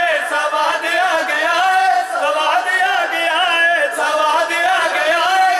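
Men singing a devotional qasida unaccompanied into microphones, amplified through a public-address system, with long held notes and melodic slides in the lead voice.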